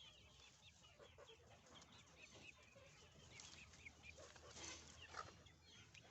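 Faint clucking and chirping from a flock of Fayoumi chickens, with a few louder calls about four to five seconds in.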